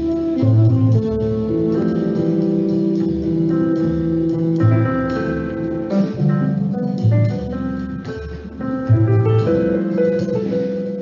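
Instrumental background music, light jazz-style, led by plucked guitar.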